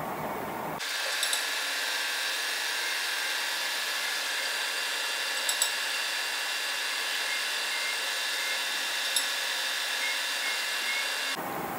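Metal lathe turning a steel shaft under flood coolant, a longitudinal roughing cut: a steady, high-pitched cutting hiss with a few faint steady tones and three short, sharp clicks. It starts abruptly about a second in, replacing the fuller noise of the lathe centre-drilling the bar end, and cuts off just before the end.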